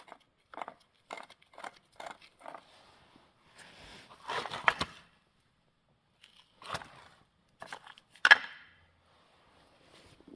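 Irregular clicks and knocks of hard objects being handled, with a short rattling cluster about four seconds in and one sharper, louder knock a little past eight seconds.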